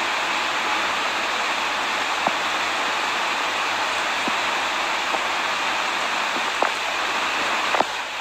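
Steady, even hiss like rain or a running fan, with a few faint soft clicks.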